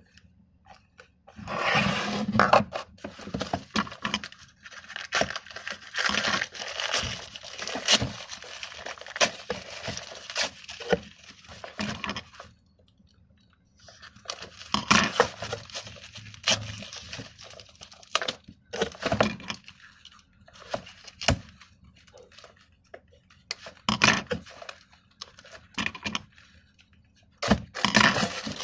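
Plastic sport stacking cups and their plastic wrapping being handled during unpacking: irregular crinkling, scraping and tearing with sharp clicks and clacks of plastic cups, in bursts with short pauses.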